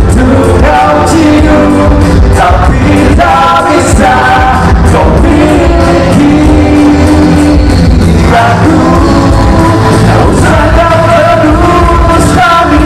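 Two men singing into microphones over loud backing music with heavy bass, amplified through a PA system.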